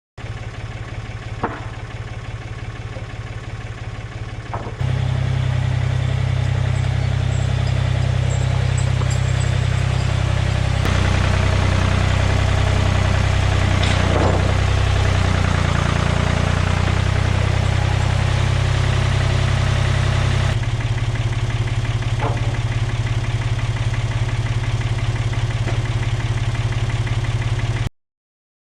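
Gasoline engine of a portable sawmill running steadily under milling. The sound changes abruptly several times, stepping up louder about five seconds in.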